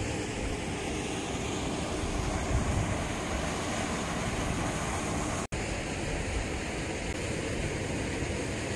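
Steady outdoor wind noise rumbling on the microphone over an even rushing hiss. The sound cuts out for an instant about five and a half seconds in.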